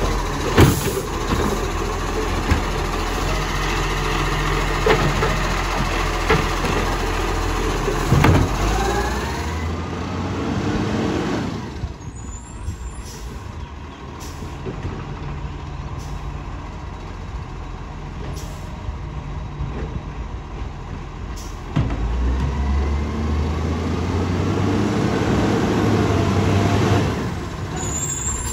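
Side-loading garbage truck's diesel engine running while its lifting arm works, with a couple of sharp knocks. About twelve seconds in the sound drops, and then an Iveco side-loader's engine grows louder as the truck approaches.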